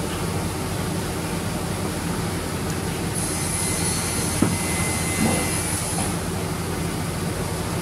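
Steady mechanical hum and noise of workshop machinery running, with a faint high whine from about three to six seconds in and a light click midway.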